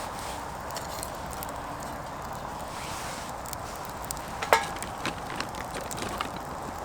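Birch kindling burning in a small wood stove, a steady hiss of flame with scattered crackles. One sharp, louder crack comes about four and a half seconds in.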